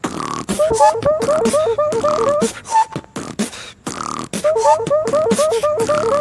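Beatboxing: a fast run of short rising laser-like zaps over kick and snare sounds made with the mouth, with a brief break about halfway and a falling glide at the end.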